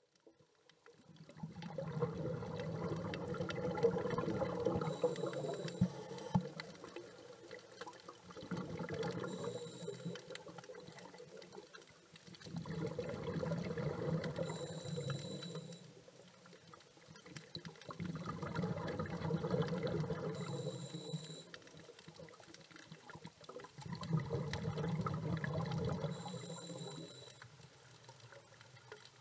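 Scuba diver breathing through a regulator underwater: five rushing, bubbling swells of exhaled air, each lasting a few seconds and coming about every five to six seconds, each with a brief high hiss.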